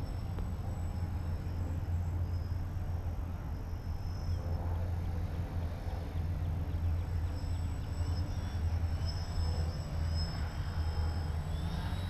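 RC aerobatic model airplane's motor and propeller running as it flies low passes, a faint pitched drone that shifts in pitch and grows stronger near the end as the plane comes close. A steady low rumble is louder than the plane throughout.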